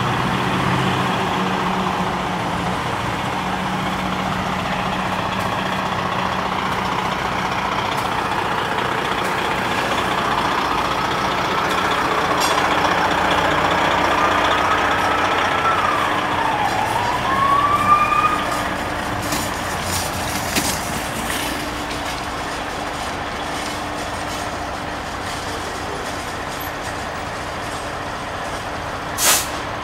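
Fire trucks' diesel engines idling steadily. Midway a siren briefly winds up, dips and rises again, and a short sharp hiss sounds near the end.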